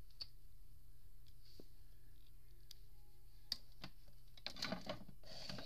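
Scattered light clicks and taps from toy figures and a wooden toy stable being handled, sparse at first and bunching into a quick cluster near the end, over a steady low hum.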